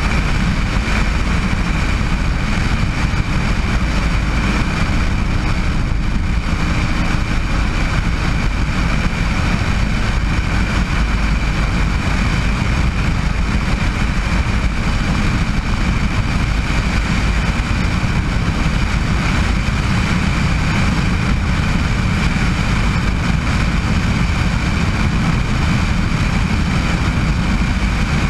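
Bell 206 JetRanger helicopter running steadily: the Allison 250 turboshaft's whine over the heavy low beat and rumble of the rotor, unchanging throughout.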